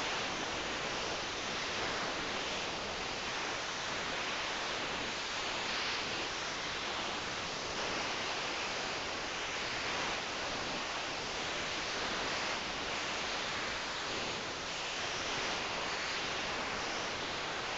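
Soft, rhythmic breathing of a sleeping person, swelling about every two and a half seconds over a steady hiss.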